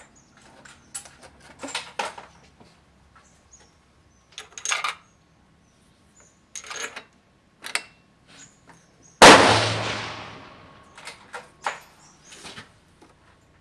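A single .308 Winchester rifle shot about nine seconds in, its report ringing off for more than a second. Before and after it come light clicks and rustles of handling.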